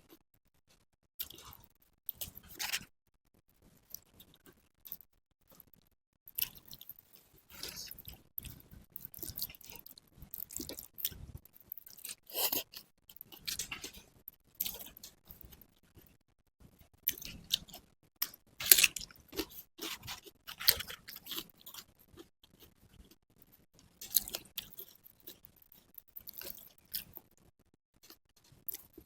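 A person chewing a mouthful of nasi pecel and sate kikil close to the microphone, in irregular bursts of wet, clicky chewing with some crunchy bites and short pauses between them.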